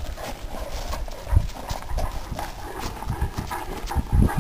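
Paws and feet scuffling and crunching on gravel as two large dogs jostle close together, with irregular low thumps.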